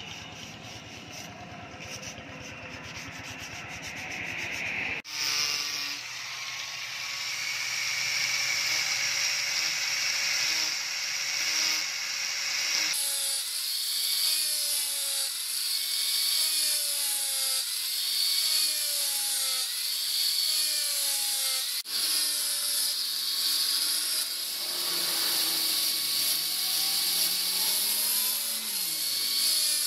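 Electric angle grinder with a sanding disc grinding a steel knife blade: a steady rasping hiss with a whine that wavers in pitch as the disc is pressed and drawn along the steel. The sound starts about five seconds in, after a quieter opening, and near the end the whine rises and then falls away.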